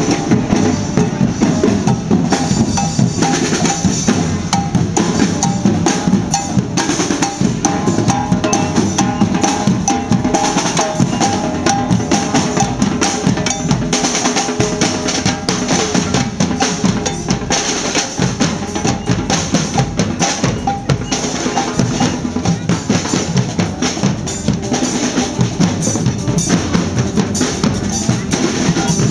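Band music driven by drums: snare and bass drum playing a busy, steady beat, with held pitched notes above it.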